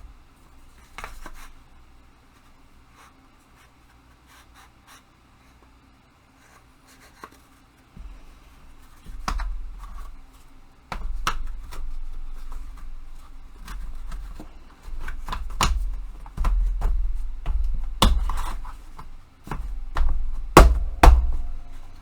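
Parts of a flat-pack hobby tool storage rack being handled and fitted together: scattered light clicks at first, then from about eight seconds in frequent sharp knocks and clicks with low bumps on the bench.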